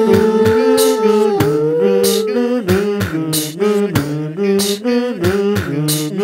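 One singer's multi-tracked voice holding wordless sung harmonies, the notes held and sliding between pitches, over sharp percussive hits about two to three times a second.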